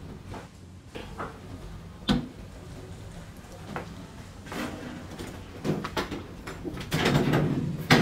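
Clattering and knocking of sheet metal as parts are handled inside a top-loading washing machine's iron cabinet, with a sharp knock about two seconds in. Near the end a louder scraping rattle and a knock come as the stainless steel tub is set down into the cabinet.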